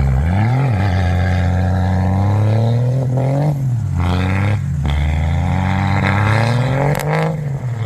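Truck engine revving up and down several times, its pitch rising and falling with brief drops in between.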